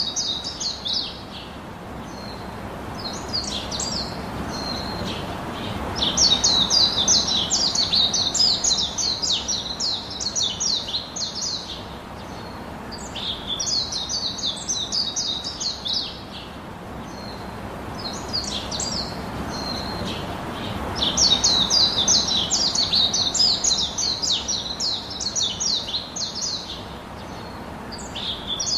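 Birds chirping in bursts of rapid, high chirps a few seconds long, returning about every seven to eight seconds over a steady low background hiss.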